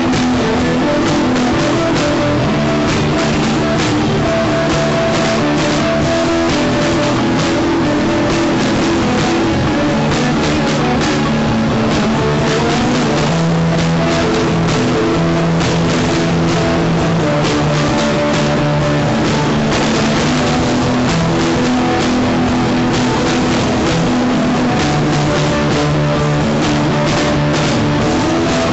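Loud rock music from a band recording: electric guitar and a drum kit playing steadily throughout.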